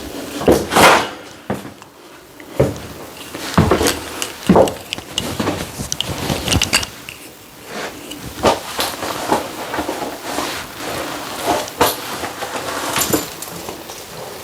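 Irregular knocks, bumps and clatter of things being handled and set down, a few strikes a second at times.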